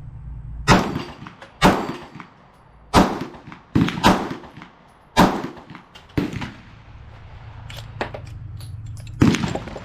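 A Glock 19–pattern 9 mm pistol being fired, about eight single shots at an uneven pace, with a longer pause before the last shot near the end.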